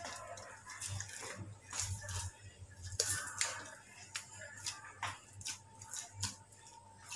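Oiled wheat-flour dough being pressed and turned by hand in a steel bowl: irregular soft, wet squishes with small clicks, a few louder ones around three and five seconds in.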